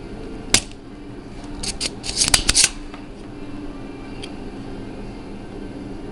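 Spring-loaded solder sucker (desoldering pump) clicking and snapping. One sharp snap comes about half a second in, and a quick cluster of clicks and snaps follows a second later as the plunger is pushed down and fired.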